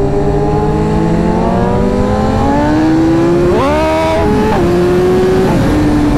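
BMW S1000RR's inline-four engine through an Akrapovič exhaust pulling hard under full acceleration, with wind rush. The note climbs steadily, then jumps and drops in pitch a few times in the second half as the gears change.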